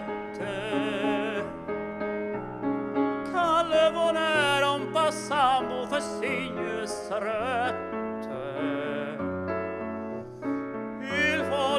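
A tenor sings a slow romantic song in operatic style, with wide vibrato, over sustained piano or keyboard chords. The melody comes in phrases of held notes with short gaps between them.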